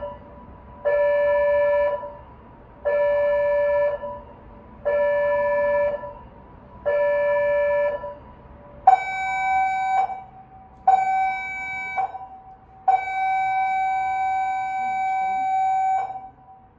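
Cruise ship's general emergency alarm signal: a run of short, steady, pitched blasts about two seconds apart, stepping up slightly in pitch for the last two, then one long blast of about three seconds that stops near the end. This is the seven-short-and-one-long general emergency signal, sounded for the safety drill before sailing.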